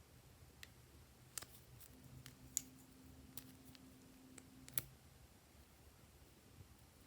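A scattering of faint, sharp clicks and taps, about a dozen, mostly between one and five seconds in, the loudest near the end of that stretch, over a quiet room.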